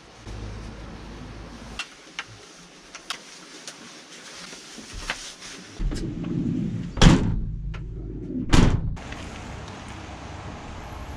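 Mountain bike being ridden over rough trail: a steady rush of tyre noise with scattered clicks and rattles, and two loud clunks about seven and eight and a half seconds in.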